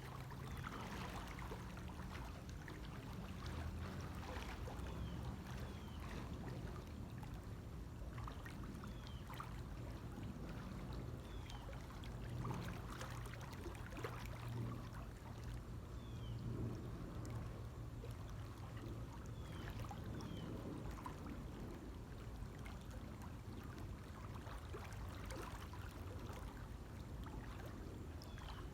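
Water splashing and sloshing from a person swimming strokes in a pool, with irregular splashes throughout.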